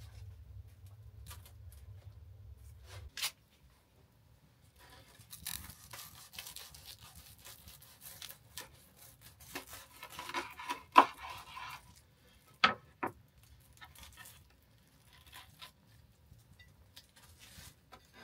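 A knife sawing through a crisp toasted flatbread wrap on a wooden cutting board, a dense crackling crunch lasting several seconds. A few sharp knocks of the blade on the board come near the end of the cut.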